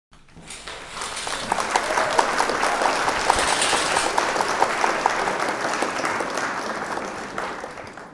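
Crowd applauding. It swells in over the first second, holds steady and fades out near the end.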